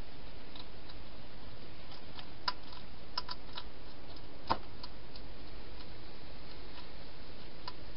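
Wild European hedgehog eating at a bowl: scattered sharp, irregular clicks of chewing, the loudest about halfway through, over a steady hiss.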